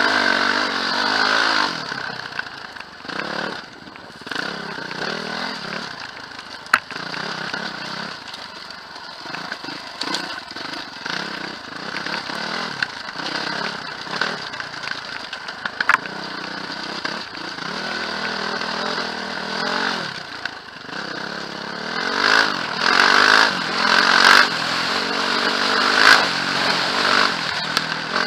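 Quad bike engine running under a rider on a rough dirt trail, its pitch rising and falling as the throttle is worked, with two sharp knocks along the way. It revs harder in surges near the end.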